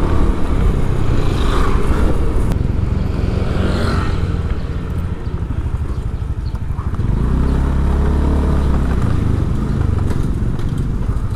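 Motorcycle engine running while riding along a city street, with road and wind noise; the engine note gets louder about seven seconds in.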